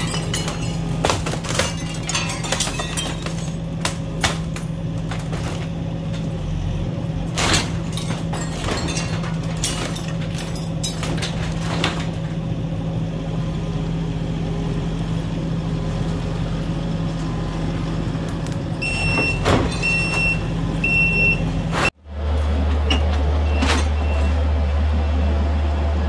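Kubota SVL65-2 compact track loader's diesel engine running steadily while its grapple bucket works inside a wooden garage, with occasional sharp cracks and knocks. Near the end come three short high beeps from its alarm. After a sudden break about 22 s in, a lower, deeper engine rumble follows.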